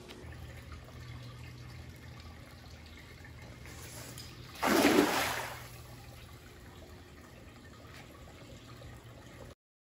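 A six-foot cast net lands on a swimming pool's surface with one short, loud splash about five seconds in. Underneath, a steady trickle of water spilling from a spa into the pool.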